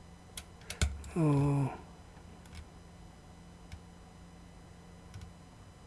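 Computer mouse clicks while scrolling through an on-screen list: a few sharp clicks about a second in, then faint single ticks every second or so, with a brief grunt-like syllable from the man just after the first clicks.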